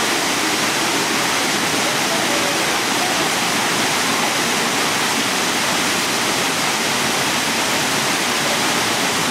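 Lichtenhain waterfall pouring over the sandstone rocks in full flow, released from the weir above: a steady, loud rushing of falling water.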